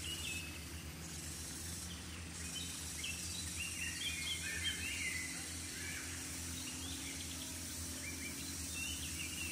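Birds chirping in short scattered calls, busiest around the middle, over a steady low rumble.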